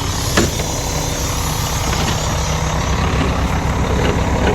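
Old truck's engine idling steadily, heard from inside the cab, with a single click about half a second in.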